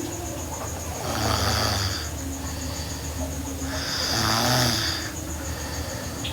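A girl snoring in her sleep, with two louder snoring breaths about three seconds apart over a steady low buzz.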